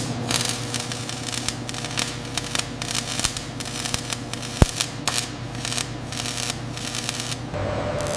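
Submerged arc welding tractor running along a weld seam: dense irregular crackling over a steady machine hum. Near the end the crackle gives way to an even hiss and hum.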